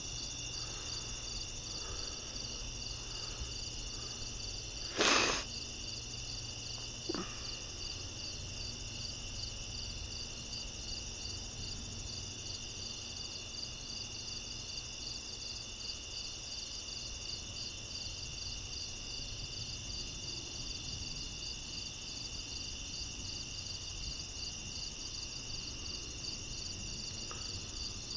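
Crickets chirping in a steady, evenly pulsing night chorus. A single sharp knock cuts through about five seconds in, and a fainter click follows about two seconds later.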